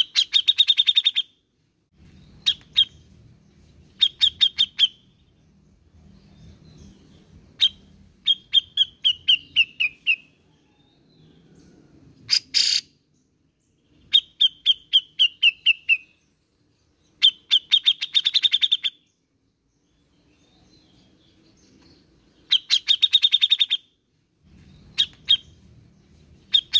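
A grey-cheeked bulbul (cucak jenggot) singing in repeated short phrases of rapid, clipped notes separated by pauses. Some phrases slide down in pitch, and one harsh, rasping note comes about halfway through.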